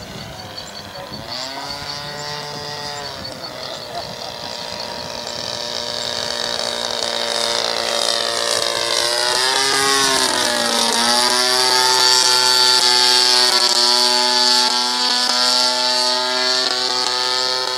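20cc DLE single-cylinder two-stroke petrol engine of a radio-controlled Cessna L-19 Bird Dog model running in flight, growing louder over the first two-thirds. Its pitch slides down and back up about ten seconds in, then holds steady.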